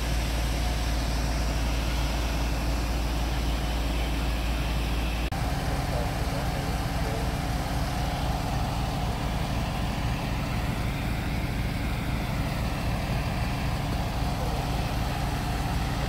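Fire ladder truck's diesel engine running with a steady low rumble as the truck moves slowly.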